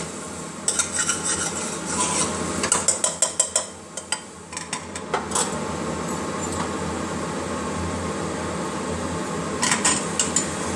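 A metal spoon clinks and scrapes against a pressure cooker as frying masala is stirred, with a quick run of sharp taps about three seconds in. A clunk follows as the cooker's lid is fitted on, and a few more clicks come near the end, all over a steady background hum.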